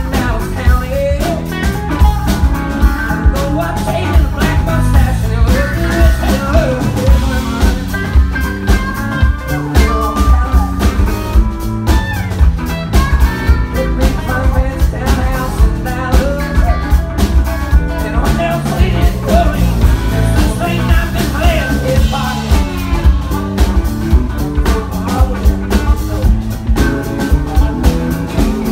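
Live band performing a song: strummed acoustic guitar over a drum kit keeping a steady beat, with a lead vocal.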